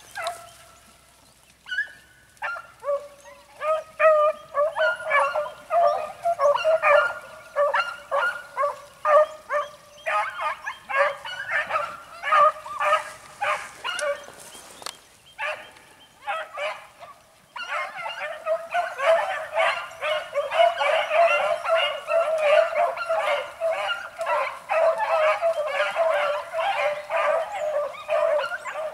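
A pack of beagle hounds in full cry, running a rabbit's scent line. Scattered baying with short gaps builds into a steady chorus of many hounds over the second half.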